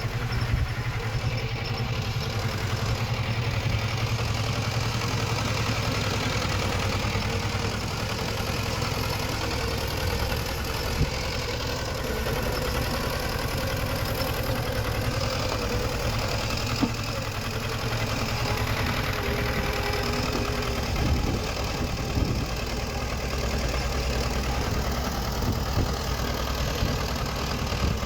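Komatsu D20 bulldozer's diesel engine running steadily, with a few sharp knocks partway through.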